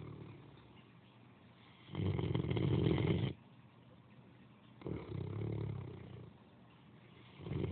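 Great Dane snoring in slow, regular snores about every two and a half seconds, the loudest and longest about two seconds in, a softer one halfway through, and the next beginning near the end.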